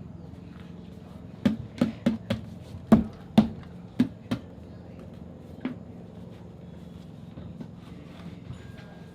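A run of about nine sharp, dull knocks, unevenly spaced, starting about a second and a half in, with the last one standing alone a little past the middle.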